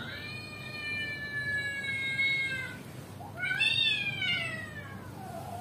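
Cat meows played back through a phone's speaker: two long drawn-out calls, the first held and sinking slightly, the second rising and then falling away.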